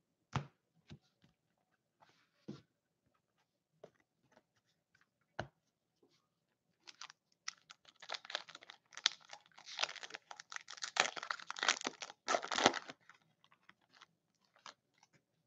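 A few light taps and clicks, then a foil trading-card pack wrapper torn open and crinkled in the hands. The crackling runs about six seconds and is loudest just before it stops.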